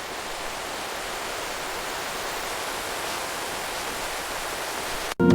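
Steady rushing of a mountain stream, a hiss of flowing water growing slightly louder, cutting off suddenly near the end.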